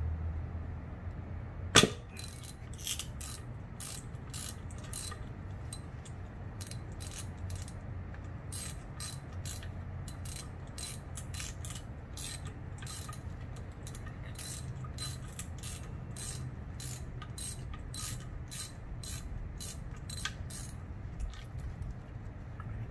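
Socket ratchet clicking in a long run of evenly spaced strokes as it turns bolts on a Nissan VG33 V6 cylinder head, after one sharp metallic clank about two seconds in.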